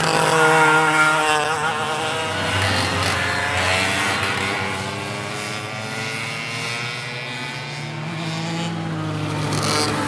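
Go-kart engines running on a track, with karts passing and the engine pitch falling and rising. It is loudest about a second in and again around three to four seconds.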